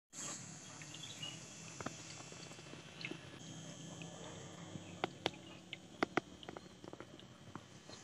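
Faint water trickling in a small homemade plastic-bottle aquarium waterfall, with a low hum underneath and a few sharp drips around five to six seconds in.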